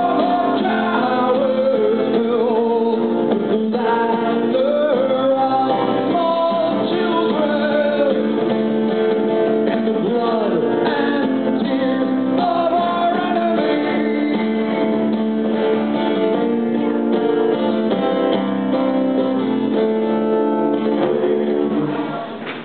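Acoustic guitar played with a man singing over it, a live song at full volume. The music drops away near the end.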